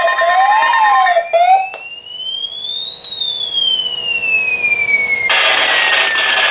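Alarm and siren tones: a warbling electronic tone cuts off about a second in, then a siren tone winds up for about a second and a half and slowly winds down. A harsh buzzing alarm tone joins about five seconds in.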